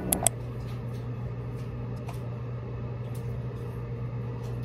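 Steady low electrical hum of a kitchen appliance, with two sharp clicks right at the start and a few faint ticks of handling.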